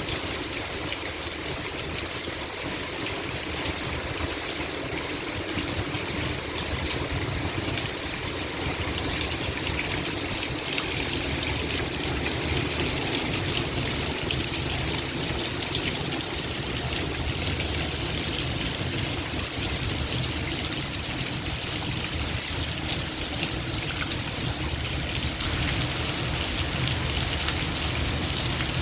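Heavy rain pouring down, a steady dense hiss with runoff water trickling and gushing, growing a little louder near the end.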